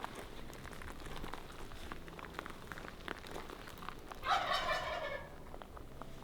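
Wild turkey tom gobbling once: a rapid rattling call lasting about a second, about four seconds in. Faint scattered ticks and rustles are heard around it.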